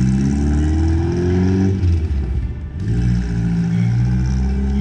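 Subaru flat-four engine in a VW Beetle accelerating away, its pitch rising for nearly two seconds. Then a break of about a second, and the engine pulls on at a lower, steadier pitch.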